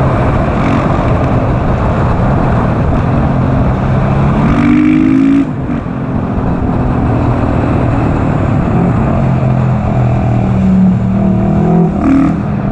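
KTM SMC R supermoto's single-cylinder engine pulling hard, mixed with wind noise. The engine note climbs and drops off abruptly about five and a half seconds in, runs on steadily, then climbs and drops again near the end.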